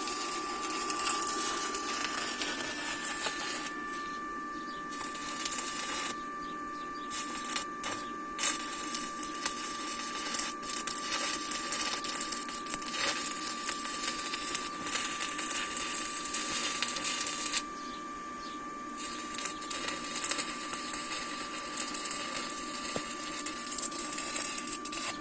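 Electric arc welding with a rod electrode: a continuous crackling sizzle of the arc that stops briefly a few times and starts again, over a steady high-pitched tone.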